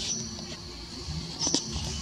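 Short high-pitched animal squeaks, one just after the start and another about a second and a half in, over a steady high-pitched drone.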